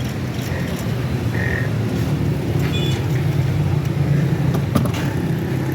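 An engine running steadily at idle, with a few light metallic clinks of tools about three seconds in and near the end.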